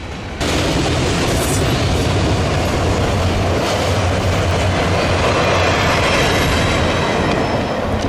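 A train passing close by, starting suddenly about half a second in: a loud, steady rumble and rush of rail cars rolling along the track, with a low hum underneath.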